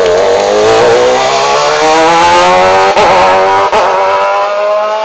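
A hillclimb competition car's engine accelerating under load, its pitch climbing steadily, with two brief sharp breaks in the note about three seconds in.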